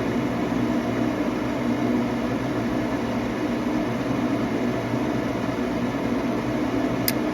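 Nordyne gas furnace's draft inducer motor running with a steady hum during the ignition sequence, with two sharp clicks near the end. The gas valve is getting only a brief, low voltage, so the burner does not light; the owner traces this to a faulty control board.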